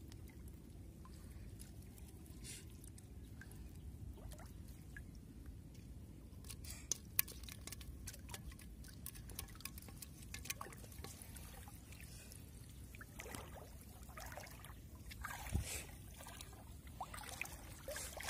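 Shallow water trickling and splashing around a wet gill net as it is handled, with scattered small clicks and a few louder splashes near the end.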